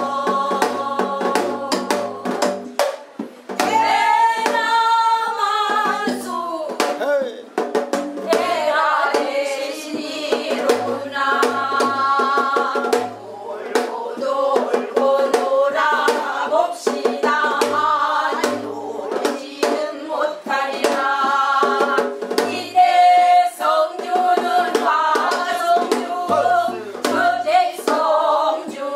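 Several women singing a Korean namdo folk song (namdochang), sometimes in unison, with sharp percussive beats keeping the rhythm.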